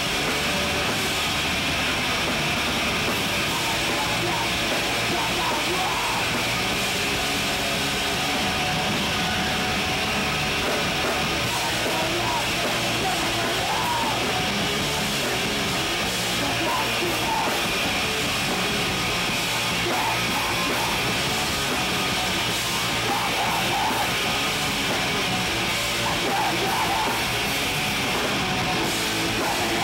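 Loud live band playing distorted, fast rock music, with drums and guitars, while a singer yells into a microphone.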